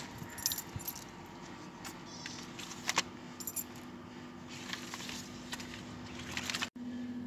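Scattered light rustling, crinkling and small clicks from an aluminium foil food tray being handled on gravel among dry palm fronds, over a steady low hum. The sound drops out for an instant near the end.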